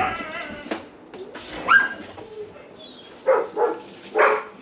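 A dog barking in short barks: one about a second and a half in, then three close together near the end.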